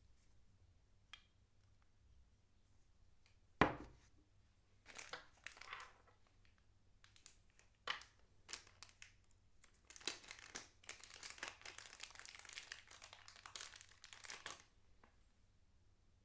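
Packaging crinkling and rustling as it is handled during unboxing, in scattered bursts and then continuously for several seconds, with a single sharp knock about three and a half seconds in.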